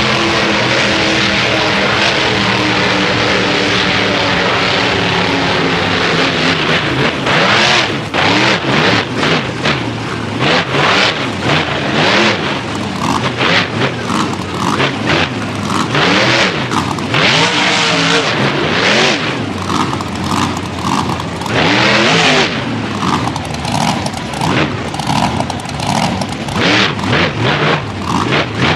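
Monster truck engine running, at first a steady high-revving drone, then from about seven seconds in revving up and down over and over in rapid surges as the truck is thrown about during a freestyle run.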